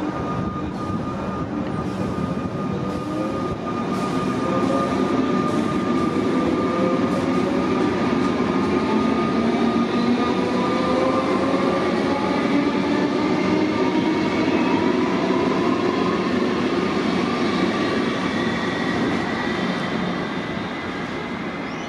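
Electric suburban trains on an elevated line: one runs past along the far track while another approaches. A steady rail rumble carries motor whines that glide in pitch; it grows louder after a few seconds and eases near the end.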